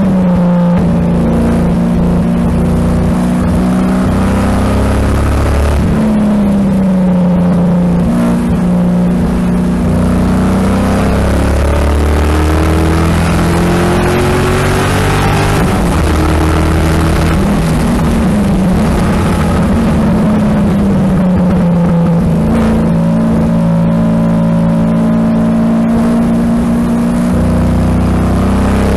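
A 2007 Corvette C6 Z06's 7.0-litre V8 heard from inside the cabin, driven at part throttle on a warm-up lap, its pitch rising and falling with throttle lifts and gear changes. Near the end it pulls up in pitch as the car accelerates onto the front straight.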